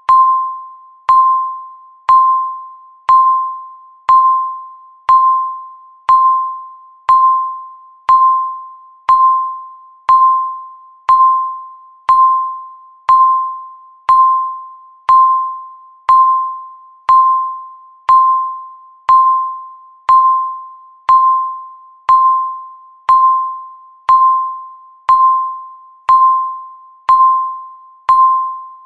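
Electronic countdown-timer beep sounding once every second: a single clear chime-like tone, struck sharply and fading out before the next one.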